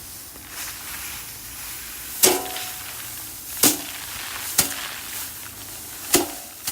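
Rice being threshed by hand, sheaves beaten against a threshing frame: four sharp whacks at uneven gaps of one to one and a half seconds, each with a short ringing tail, over a steady rustling hiss of straw and grain.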